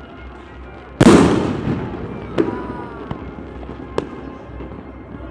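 Fireworks display: a large shell bursts about a second in, its bang rumbling and echoing away over the next second or so. Sharper single bangs follow, one near the middle and one toward the end, with a smaller pop between them.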